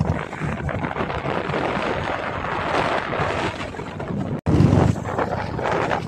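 Wind rushing over the microphone of a moving motorcycle, with a low rumble of the ride underneath. The sound breaks off abruptly about four and a half seconds in and comes back with a louder gust.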